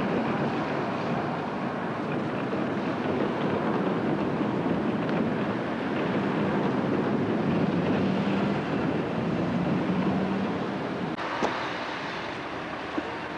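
Steady rumble of road traffic and a bus engine, with a low engine drone for a few seconds past the middle. Near the end the sound changes abruptly to a quieter street, with a sharp click.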